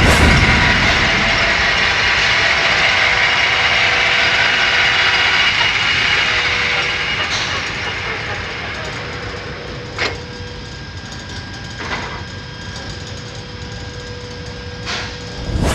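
Metal lathe's headstock gearbox and spindle running with 712 rpm selected: a steady mechanical whine made of several tones. It grows quieter after the first half, and a few short clicks or knocks come about 10, 12 and 15 seconds in, with a louder one at the very end.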